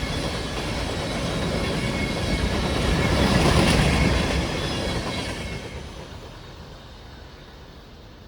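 Rush and rattle of a Norfolk Southern manifest freight train's cars passing at about 58 mph, swelling about three seconds in and then fading away as the train moves off.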